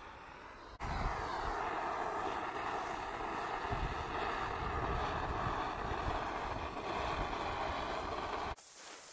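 Handheld gas torch burning with a steady hiss as it is played over stained wood to scorch the surface. It gets much louder about a second in and stops abruptly near the end.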